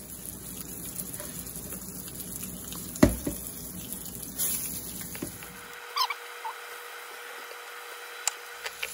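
Battered bluegill and crappie fillets sizzling in hot vegetable oil and butter in a skillet, a steady frying hiss. A sharp knock about three seconds in.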